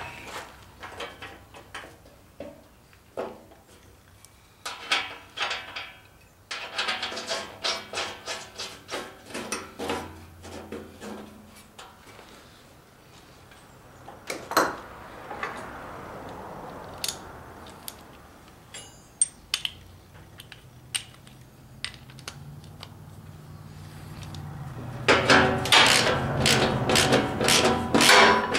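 Hand ratchet wrench clicking in bursts as bolts on a mower gearbox's shield bracket are run in, with a few lone clicks in between. It gets louder and more continuous near the end.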